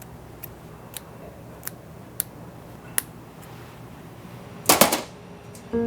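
Five sharp single taps, spaced about half a second to a second apart, over a low steady hum, then a louder short clatter of several knocks about five seconds in. Music with held tones starts just before the end.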